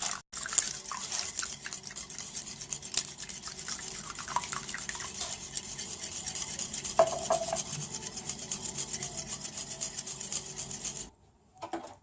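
A utensil beating an egg, milk, sugar and cinnamon mixture in a bowl: quick, even strokes with occasional clinks against the bowl, stopping about a second before the end.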